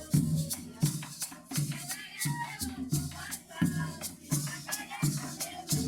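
Colombian gaita music: cane gaita flutes playing a wavering melody over a drum and maraca. The drum strikes a steady beat about every 0.7 s under a constant maraca shake.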